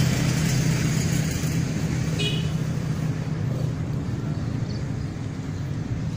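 Steady hum of road traffic, slowly fading, with a brief high chirp about two seconds in.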